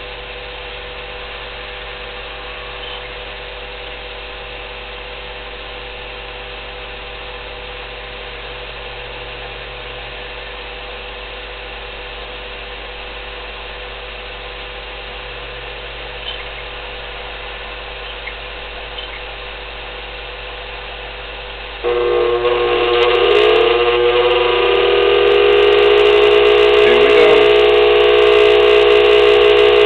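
Pellet stove motor hum, steady at first. About two-thirds of the way through, the US Stove 5660's Fasco convection (room) blower switches on: the sound jumps suddenly louder, its whine shifts in pitch as it spins up, then settles into a loud steady hum with several tones and a crackly buzz. This is the startup vibration and noise being shown.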